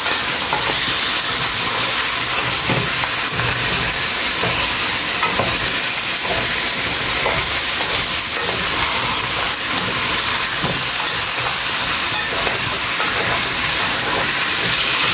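Pieces of cow foot sizzling steadily as they fry in hot curried oil in a metal pot, stirred with a wooden spoon that makes faint scraping ticks against the pot now and then.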